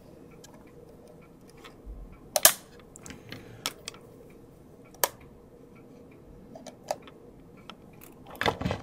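Handling noise of an analog multimeter and its test leads being moved and set down: scattered clicks and knocks, the loudest about two and a half seconds in, with a quick run of knocks near the end.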